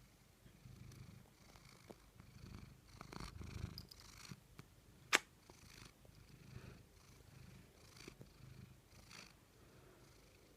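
Domestic cat purring, a low rumble that swells and fades in pulses about a second apart, with one sharp click about five seconds in.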